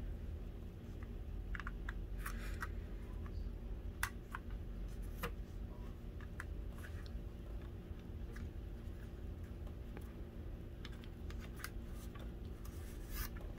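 Scattered light plastic clicks and scrapes as fingers pry the plastic protective inserts out from the sides of an HO-scale model locomotive, over a steady low background hum.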